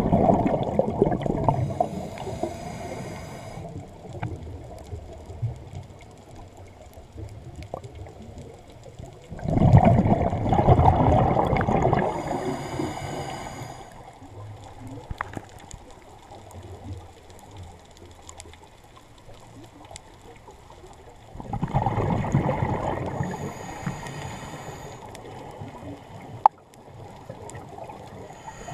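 Scuba diver breathing through a regulator underwater: a loud rush of exhaled bubbles three times, about eleven seconds apart, each followed shortly by a thin hiss with a faint whine. A single sharp click comes near the end.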